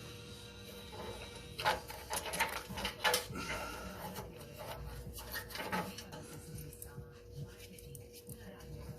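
Light clicks and knocks of small engine parts and hand tools being handled during carburetor reassembly, thickest about two to three seconds in, over a faint steady hum.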